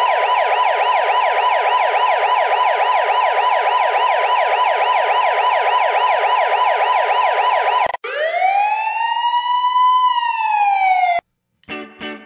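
Electronic police siren in a fast yelp, about four sweeps a second, switching about eight seconds in to one slow wail that rises and then falls before cutting off suddenly. Music starts just before the end.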